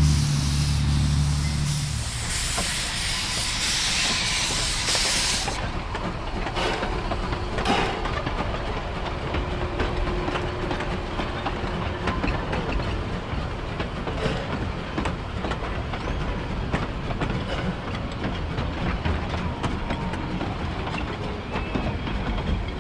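1910 Vulcan 0-4-0 narrow-gauge steam locomotive and its train passing: a loud hiss of steam, with a low steady tone under it for the first two seconds, cuts off sharply about five seconds in. The rest is the rumble of the train rolling by, with wheels clicking over the rail joints.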